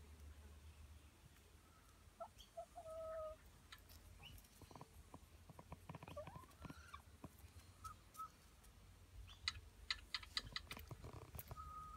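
Domestic hens clucking softly as they peck at scattered oats, in short held calls, with a cluster of small sharp taps near the end.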